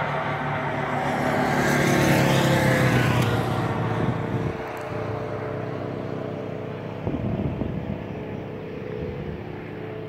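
A motor vehicle passing by. Its engine hum is loudest about two to three seconds in, then drops in pitch and fades into a steady hiss.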